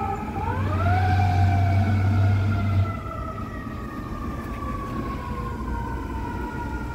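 Fire truck siren wailing: a quick rise in pitch about half a second in, then a slow, drawn-out fall. A loud low drone sounds beneath it and cuts off abruptly about three seconds in.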